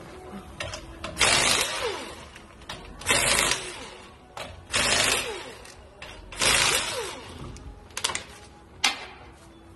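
Pneumatic impact wrench spinning off a car wheel's lug nuts in four short bursts about a second and a half apart, followed by a couple of sharp clicks near the end.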